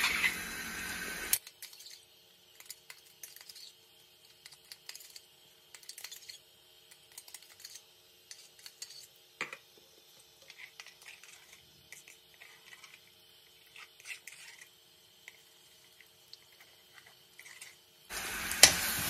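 Ground herb-and-pepper paste sizzling as it fries in butter in a pan, cut off abruptly about a second in. A long quiet stretch follows with scattered faint clicks and taps over a low hum, and the sizzling returns suddenly near the end.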